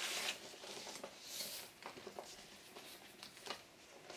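Soft rustling of paper and cardboard record sleeves being handled, with a few light taps.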